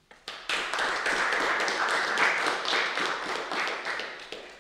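Applause from a small audience: a few claps at first, then steady clapping that dies away near the end.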